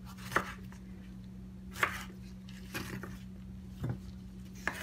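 Kitchen knife cutting tomatoes into quarters on a cutting board: about five separate knocks of the blade on the board, roughly one a second. A steady low hum runs underneath.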